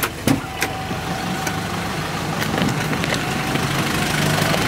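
A road vehicle's engine idling in street traffic, a steady low hum that grows louder near the end, with two or three sharp knocks in the first second.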